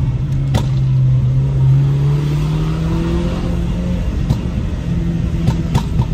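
BMW engine and exhaust heard from inside the cabin, accelerating in a low gear: the note rises steadily for about four seconds, drops out briefly, then carries on at a steady pitch. A few sharp ticks are heard along the way.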